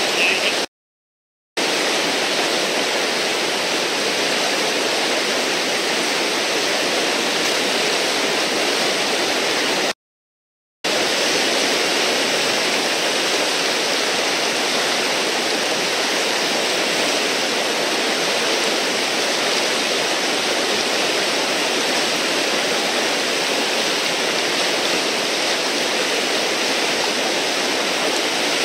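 Whitewater of a standing river wave rushing steadily and loudly, the river running high on a dam release. The sound cuts out completely twice for under a second, about a second in and about ten seconds in.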